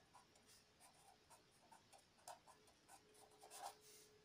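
Faint scratching of a pen writing on paper in short, quick strokes.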